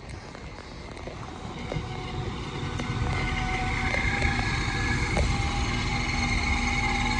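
A train approaching, its rumble growing louder over the first few seconds, then running on steadily with a whine of several held tones.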